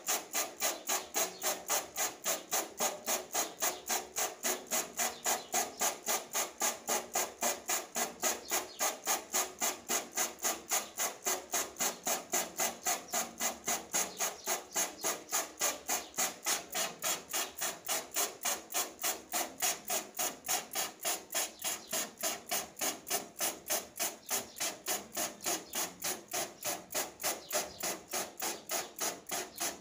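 Hand trigger spray bottle pumped rapidly and evenly, about three to four squirts a second, each a short hissing spritz onto the screen-printing mesh as the emulsion is washed out to develop the stencil.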